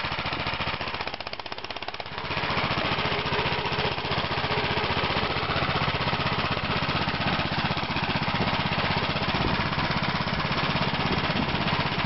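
The small air-cooled engine of a tracked snow tow vehicle, just started and running with a fast, even pulsing beat. It eases off briefly, then picks up about two seconds in and runs steadily as the machine moves off across the snow.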